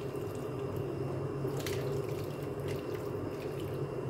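Creamy pasta sliding out of a nonstick pan and dropping into a ceramic baking dish, with a few light scrapes of a utensil against the pan, over a steady low hum.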